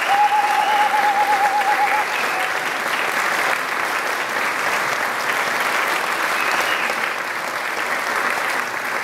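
Concert audience applauding steadily after the final chord. A long, wavering high call sounds over the clapping for the first two seconds.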